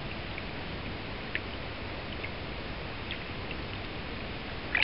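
Steady rush of river water flowing around a wading angler, with a few small drips and one brief cluster of splashes near the end.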